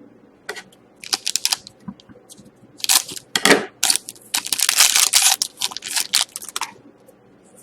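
Wrapper of a hockey card pack crinkling and tearing as it is opened: bunches of sharp crackles, the densest and loudest about three to six seconds in.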